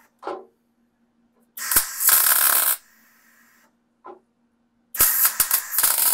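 MIG welder laying tack welds on a thin sheet-metal fan shroud: two sharp-starting bursts of welding crackle, each just over a second long, one about a second and a half in and another near the end. A steady low hum runs underneath.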